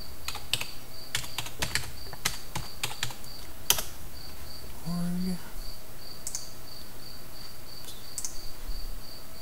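Typing on a computer keyboard: a quick run of key clicks for the first four seconds, then a few scattered clicks. A steady high-pitched chirping pulse, about three a second, sounds underneath throughout.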